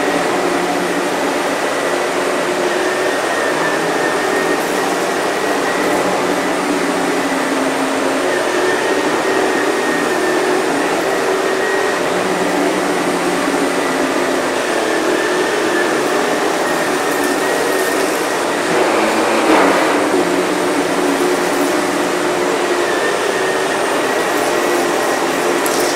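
Sebo Airbelt K1 canister vacuum cleaner running steadily while vacuuming a dirty rug, its motor noise carrying a constant high whine. A brief louder surge comes about three quarters of the way through.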